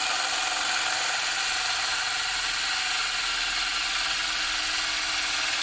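Small 10-volt cordless drill running a wet diamond core bit, grinding a hole into a porcelain tile with a steady high-pitched whine.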